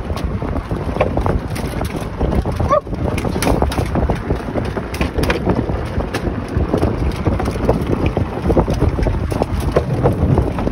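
Golf cart rolling over a wooden plank bridge: its tyres knock and clatter irregularly over the deck boards under a steady rumble. Wind buffets the microphone.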